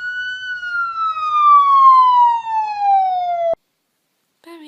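A single long siren wail that climbs quickly, then falls slowly and steadily in pitch for about three seconds and cuts off abruptly.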